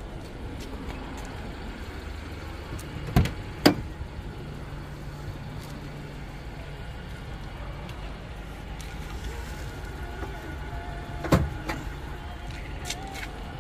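A few sharp knocks and clunks from handling a small car's open doors and interior trim: two close together about three seconds in, another near the end. Under them runs a steady low hum.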